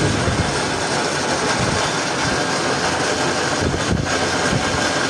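WWII-era metal lathe running with a steady mechanical noise.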